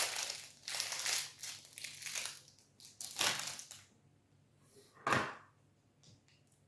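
Plastic protein-bar wrapper crinkling in several bursts over the first four seconds, then one louder short thump about five seconds in.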